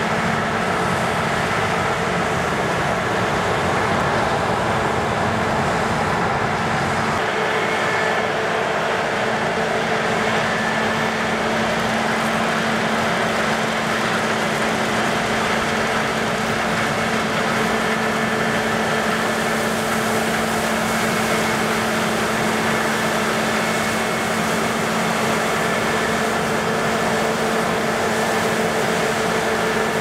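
New Holland combine harvester threshing rapeseed, with a John Deere tractor and transfer trailer running alongside: a steady machine drone with constant hum tones. The low part of the sound shifts slightly about seven seconds in.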